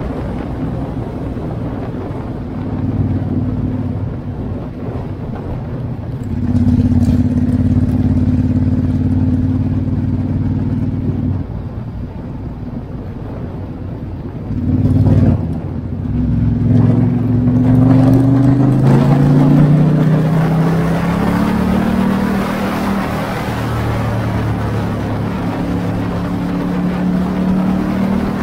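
Ducati XDiavel S's 1262 cc L-twin engine running as the bike rides along. Its note holds steady, eases off, gives a short louder burst about halfway, then climbs steadily in pitch as the bike accelerates.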